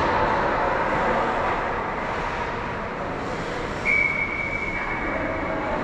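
Ice hockey rink noise of skates scraping across the ice, with a referee's whistle blown once about four seconds in: one steady, high blast lasting about a second and a half.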